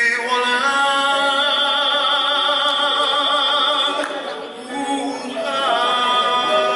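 A male voice singing in a live ballad, holding one long note with a wavering vibrato for about three seconds, then starting a new phrase near the end.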